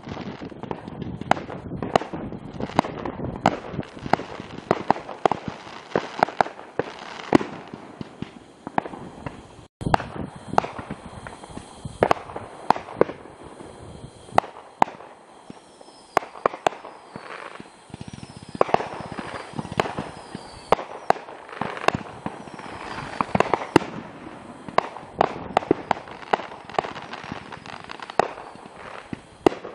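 Aerial fireworks going off in an irregular barrage of bangs and crackles, with a few short falling whistles about halfway through.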